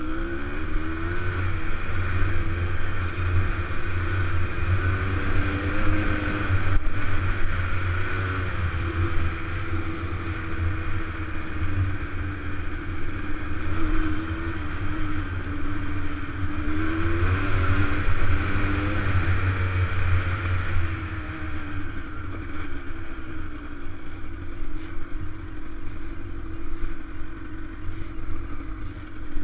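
Dirt bike engine running under way, its note rising and falling as the throttle opens and closes, with wind rushing over the helmet-mounted microphone.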